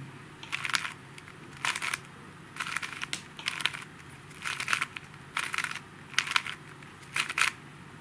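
Stickerless 4x4 plastic puzzle cube being turned by hand: short clicking rattles of its layers turning, about one turn a second.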